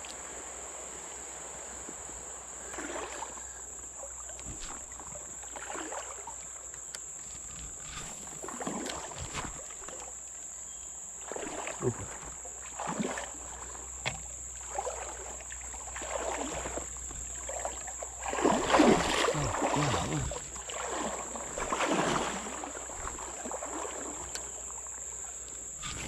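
Water sloshing and splashing around a person's legs while wading in a shallow river, in irregular swishes every second or two, loudest about three quarters of the way through. A steady high insect drone runs underneath.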